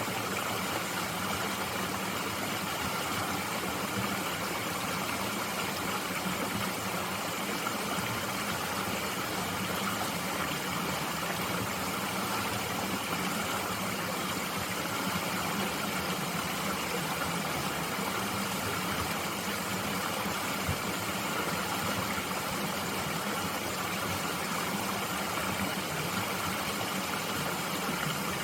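Mountain stream flowing steadily, an even rushing of water with no change.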